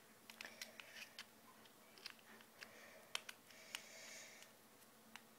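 Near silence with faint, irregular small clicks and taps, the sound of light handling.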